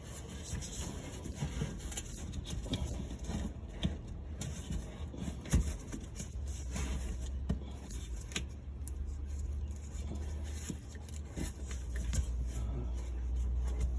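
Scattered clicks, knocks and scrapes of hands and tools working on a lowered fuel tank under a vehicle, over a low steady hum that grows louder about halfway through.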